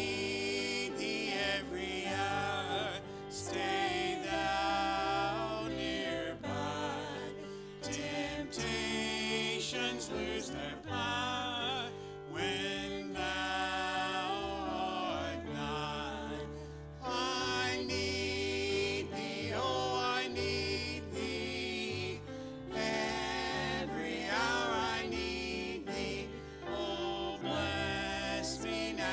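A small group of mixed voices, a man and two women, singing a gospel hymn into microphones, accompanied by piano and guitar.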